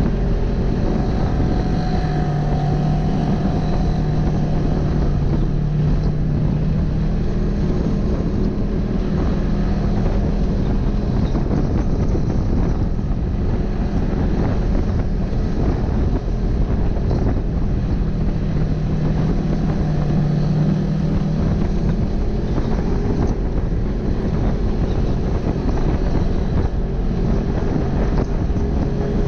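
Polaris RZR XP 1000 side-by-side's twin-cylinder engine running steadily, its pitch shifting a little with the throttle, with wind buffeting the microphone.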